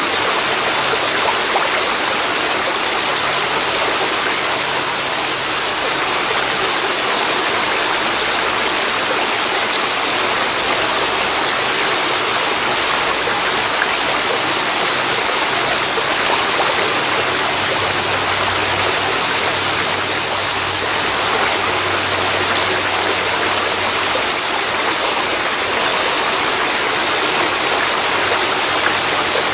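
Waterfall pouring into a river, a steady, loud rushing of water.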